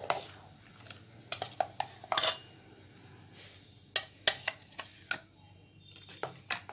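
A spoon stirring ground bathua paste into buttermilk in a stainless steel bowl, clinking against the bowl in a dozen or so scattered knocks.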